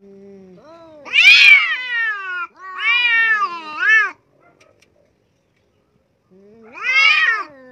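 Two domestic cats yowling at each other in an aggressive face-off. Three long, wavering yowls that rise and fall in pitch, with a pause of about two seconds before the last one.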